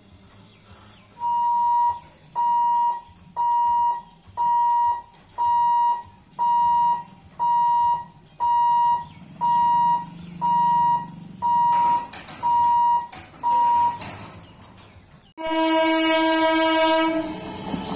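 Level-crossing warning buzzer beeping a single high tone about once a second, thirteen times, signalling that the boom barriers are closing. Near the end, the approaching EMU local train's horn sounds loudly for about two seconds.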